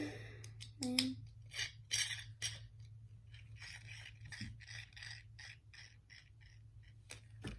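Loose plastic LEGO pieces being rummaged through by hand: a run of short scraping, rattling strokes, a few a second, thinning out near the end.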